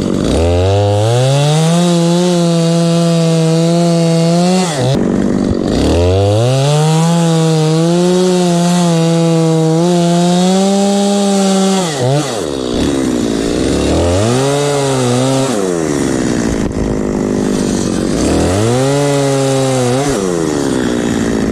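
Stihl chainsaw bucking a dead ash log into firewood rounds. The engine revs up to full throttle and holds there through two long cuts of about four and six seconds, dropping back to a lower pitch between them, then rises and falls twice more for shorter cuts.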